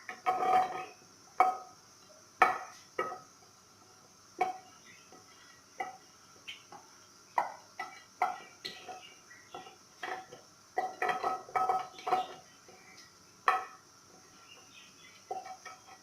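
A spoon clinking and knocking against dishware while lemon zest is worked and strained: irregular sharp clinks with a short ring, about one or two a second, bunched together near the start and again about eleven seconds in.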